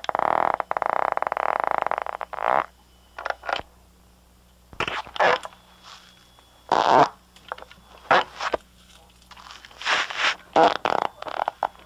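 Fart sounds played back from a cassette tape recording: one long rasping fart of about two seconds, then a string of shorter ones. A steady low hum lies under them.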